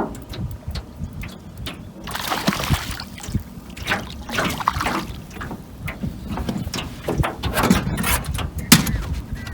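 Water splashing and sloshing with scattered knocks and clicks, as a just-caught rainbow trout is landed and handled at the side of a boat. The splashing comes in irregular washes, loudest a few seconds in.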